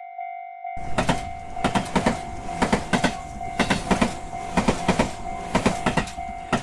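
A Japanese railroad crossing's electronic warning bell rings 'kan-kan' about twice a second. Less than a second in, a train passes over the crossing, its wheels clattering over the rail joints in clusters about once a second, and the train noise starts and stops abruptly.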